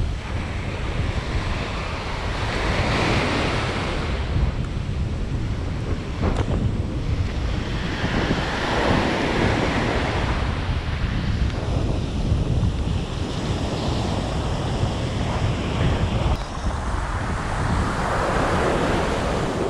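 Ocean surf breaking and washing up a sandy beach, swelling and fading every few seconds, with heavy wind rumble on the microphone.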